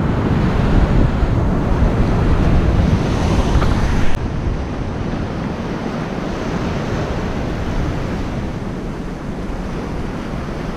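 Surf breaking on a sandy beach, with wind buffeting the microphone: a steady rush of noise that drops a little about four seconds in.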